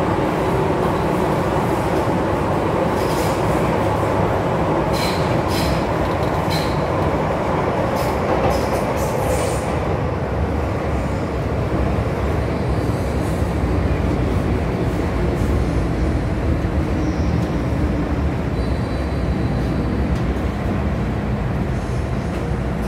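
Cabin of an MTR M-Train electric multiple unit running in a tunnel: a steady loud rumble of wheels and running gear under a motor whine that falls in pitch as the train slows towards a station. Short high squeaks and clicks come between about three and ten seconds in.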